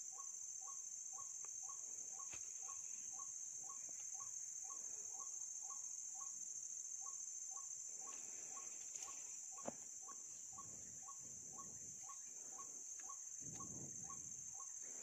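Insects droning steadily in a high-pitched buzz, with a faint short note repeating about four times a second beneath it. A single faint click comes near the end.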